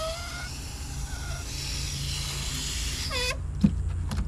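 Water hissing from a garden-hose spray nozzle onto a compressed coco coir brick in a plastic tub, cutting off suddenly about three seconds in. A few short knocks follow as the wet brick is handled in the tub.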